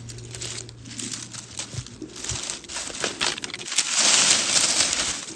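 Crinkling, crackling rustle with scattered small clicks, swelling to its loudest, a high hiss, about four seconds in.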